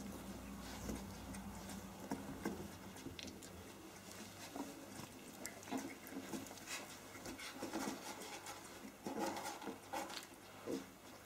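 A litter of 19-day-old Australian Kelpie puppies wrestling on fleece bedding: faint, irregular scrabbling and pattering of paws and bodies, with a few small puppy noises near the end.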